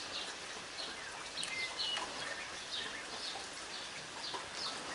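Light rain falling, a steady hiss, with short bird chirps here and there.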